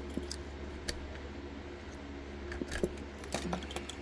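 Scattered small metallic clicks and taps of a lock and its key being handled, over a steady low hum.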